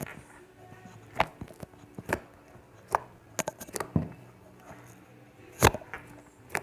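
Slime being worked by hand, giving sharp pops and clicks at irregular intervals, about eight in all.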